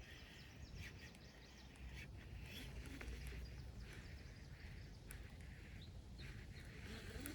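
Faint outdoor ambience: scattered, irregular bird chirps over a low, steady rumble.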